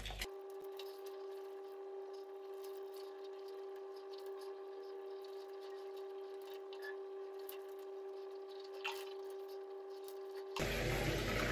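A faint, steady hum with a few small soft clicks and taps.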